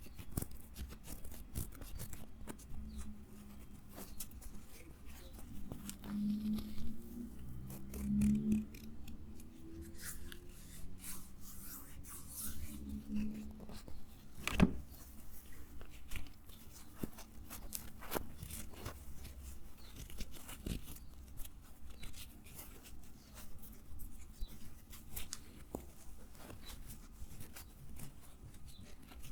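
Close-miked crisp clicking, snipping and crackling from an object being handled, with sharp irregular clicks throughout and a faint low hum for a few seconds in the middle.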